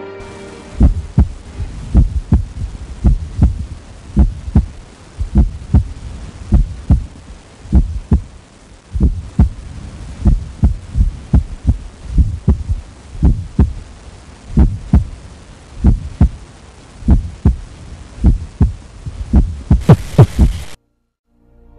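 Amplified heartbeat: a steady lub-dub of paired low thumps, a little faster than one a second, over a steady hiss. It cuts off suddenly near the end.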